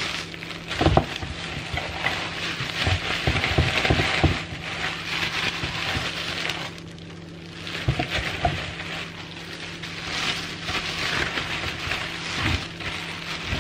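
Plastic oven bag packed with cut vegetables crinkling and rustling as it is squeezed and gathered to let the air out, with a few soft thumps of the bag against its ceramic baking dish. The rustling pauses briefly about seven seconds in.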